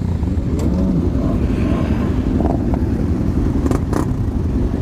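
Many motorcycle engines idling together in a steady low rumble, with a few short revs rising and falling, and a couple of sharp clicks near the end.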